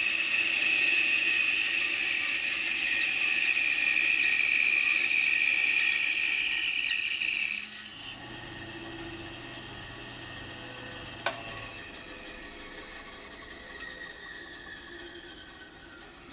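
Pegas band saw with a narrow blade cutting straight through a redwood 4x4, a loud steady rasping whine; about eight seconds in the cut ends and the sound drops suddenly to the saw running much quieter with no load. A click follows about three seconds later, then a faint whine slowly falls in pitch.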